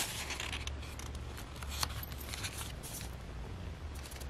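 Faint rustling of an old, brittle book page as it is handled and laid onto cardstock wet with Mod Podge, over a low steady hum.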